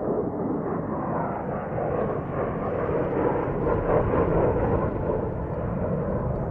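Jet engine noise from a formation of F-16 fighter jets flying past. It swells over the first few seconds and then holds steady.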